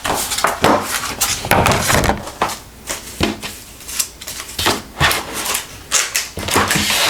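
Packaging being handled during an unboxing: irregular rustling with many small clicks and knocks as items are taken out of the box.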